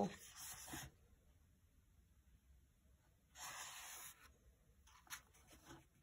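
A page of a paperback colouring book being turned: a soft, faint rustle of paper lasting about a second midway, with a light tap near the end. Otherwise near silence.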